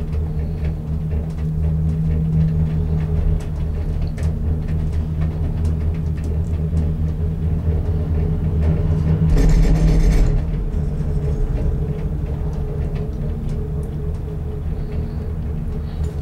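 Gondola cabin riding the lift's haul rope, heard from inside the cabin: a steady low rumble and hum with light ticks and creaks. A little past halfway, a louder rush of rattling noise lasts about a second.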